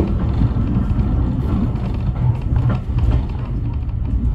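Steam-hauled heritage train running, heard from inside a carriage: a loud, steady low rumble of the carriage and wheels on the track.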